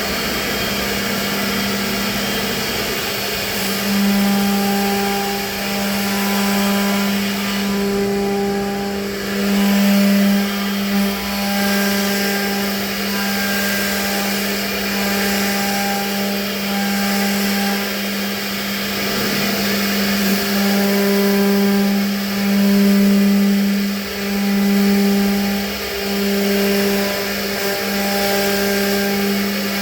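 CNC router spindle running with a steady hum, cutting a wood-plastic composite (WPC) door panel; the sound swells and dips in loudness every few seconds as the cut load changes.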